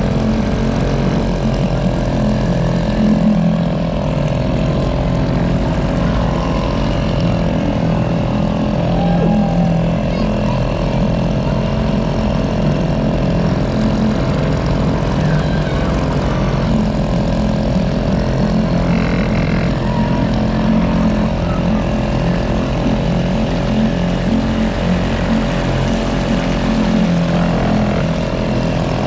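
Bumper boat's motor running at a steady speed, a continuous hum with no change in pitch.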